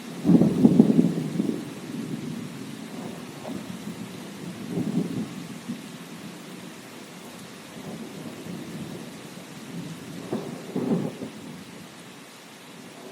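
Steady rain with rolling thunder: a heavy low rumble right at the start, then weaker rumbles about five seconds in and again near the end.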